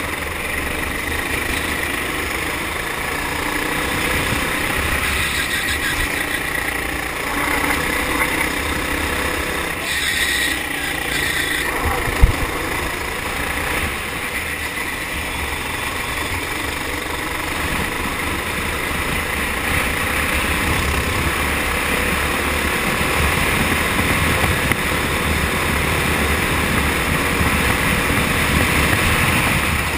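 Four-stroke kart engine running steadily under throttle on a lap, heard from on board the kart. A single sharp knock about twelve seconds in.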